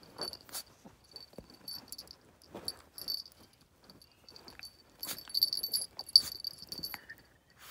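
Small collar bell and metal tag on a chihuahua's collar jingling in irregular bursts as the dog wriggles and rolls, with rustling of fur against couch fabric.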